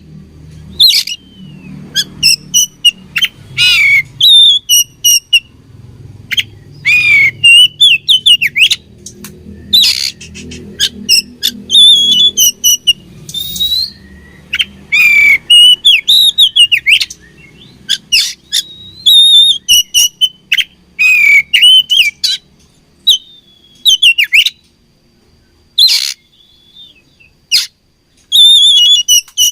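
Oriental magpie-robin (kacer) singing: loud bursts of sharp whistled notes and harsh chirps in quick phrases, separated by short pauses, with a brief lull near the end.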